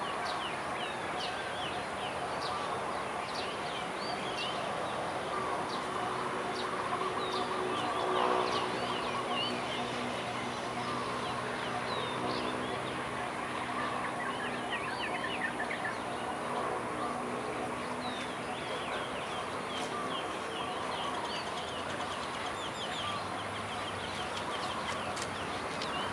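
Many birds chirping in short, quick calls over a steady outdoor background. For several seconds in the middle a fainter pitched sound rises under the birdsong.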